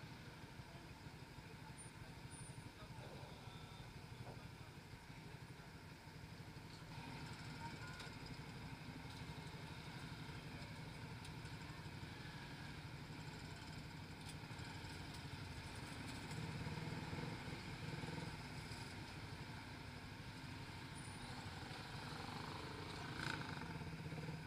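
Suzuki Raider 150 Fi's single-cylinder engine running steadily at idle and low speed in stop-and-go traffic, with a brief knock near the end.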